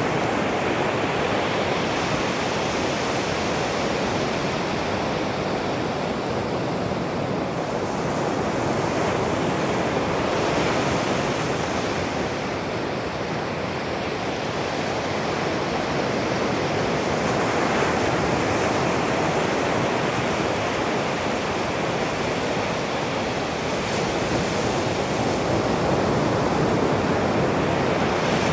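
Ocean surf breaking on a sandy beach: a steady wash of noise that swells and eases as the waves come in.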